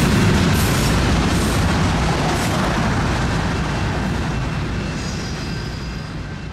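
BNSF freight train with a trailing GE C44-9W distributed-power locomotive rolling past and moving away, the rumble of engine and wheels on the rails fading steadily.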